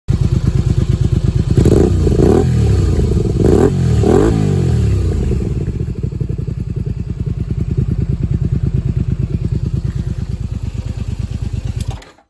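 Honda VT250F's 250 cc V-twin idling through an aftermarket silencer. It is blipped twice in quick pairs of revs in the first few seconds, then settles back to a steady idle until it cuts off near the end.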